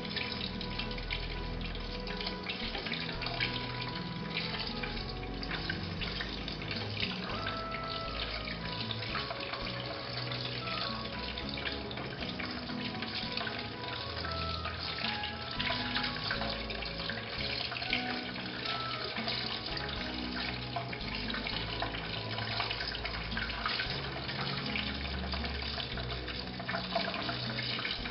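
Sciatt, buckwheat-batter cheese fritters, deep-frying in a saucepan of hot olive oil: a steady crackling sizzle. Background music with held notes plays underneath.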